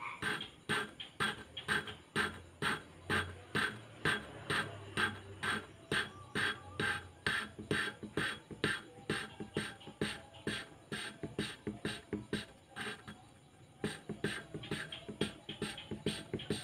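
A motorcycle engine valve is being lapped into its seat in the cylinder head. The valve is twisted back and forth against abrasive lapping compound, giving an even, gritty rubbing rhythm of about three strokes a second, with a short break near the end.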